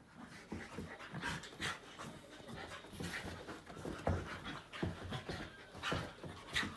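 Two dogs, a Finnish Lapphund and a small white dog, panting and scuffling as they play-wrestle on a hide rug, in quick irregular bursts.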